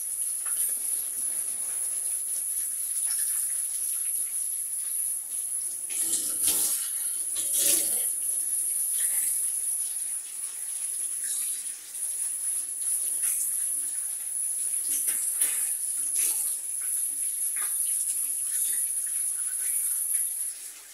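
Water spraying from a handheld shower head over a kitten in a bathtub: a steady hiss, louder for a moment twice, about six and eight seconds in.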